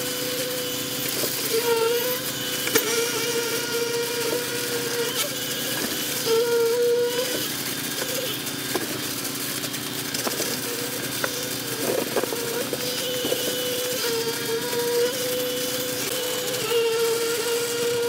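Concrete-pour machinery running steadily: a truck-mounted concrete pump and a concrete vibrator, with a wavering whine that swells and eases every few seconds.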